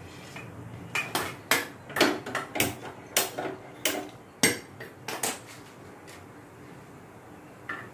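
Dishes and metal utensils clattering: about a dozen sharp knocks and clinks over some four seconds, starting about a second in, then one fainter knock near the end.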